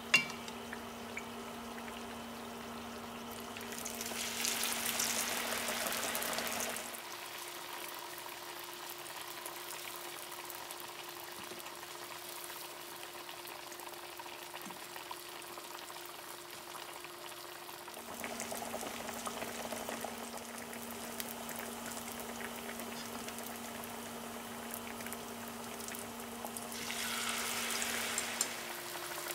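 Batter-coated banana fritters deep-frying in hot oil, a steady sizzle and bubbling that flares louder twice, a few seconds in and near the end, as re-dipped pieces go back into the oil. A faint steady hum runs underneath.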